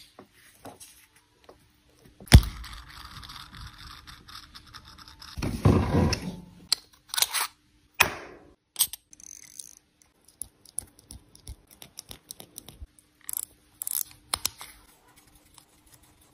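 Handling noises from a wristwatch and its leather strap turned over in gloved fingers: a sharp click about two seconds in, several seconds of rustling and scraping, then scattered light clicks.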